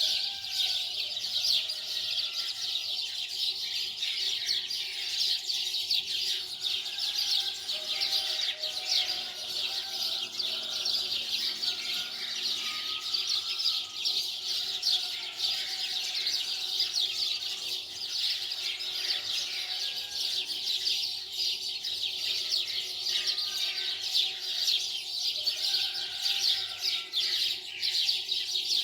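Many small birds chirping and twittering continuously, a dense unbroken chorus of short high notes.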